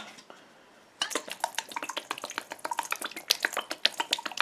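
Worcestershire sauce shaken out of its bottle in quick dashes onto raw ground beef in a stainless steel bowl. Rapid, irregular patter of drops and ticks starts about a second in and keeps going.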